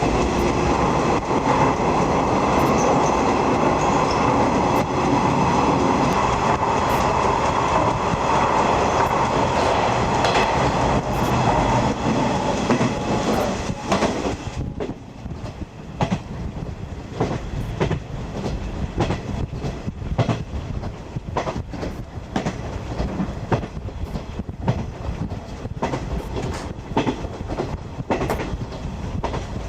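A 50-series passenger coach running on the rails, heard from inside the coach. For the first half there is a loud, dense rumble with steady ringing tones. About halfway it drops off suddenly, leaving quieter running with the clickety-clack of the wheels over rail joints.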